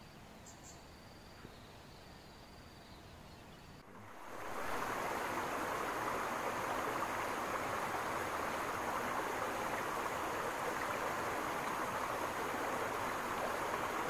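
Outdoor ambience: very quiet for about four seconds with a faint thin high tone, then an abrupt change to a louder steady rushing noise that continues.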